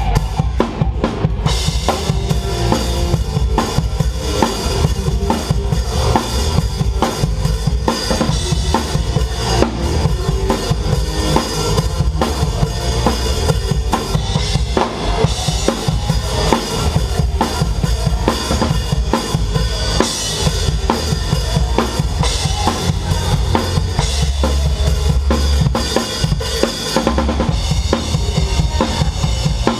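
Live rock band with the drum kit loudest: a driving kick-drum and snare beat with cymbals, played without a break.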